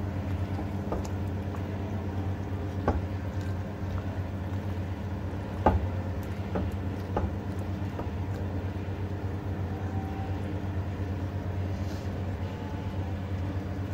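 A spatula stirring chopped round gourd in a clay cooking pot, scraping and knocking against the pot's sides: a few sharp knocks, the loudest a little under six seconds in, over a steady low hum.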